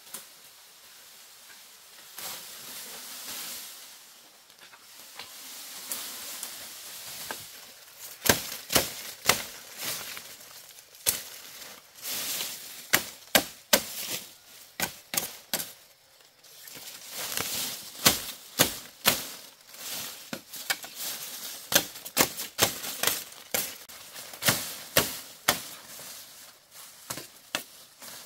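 Bamboo being cut and cracked with a blade: many sharp, woody cracks and knocks in quick, irregular runs, after a stretch of rustling at the start.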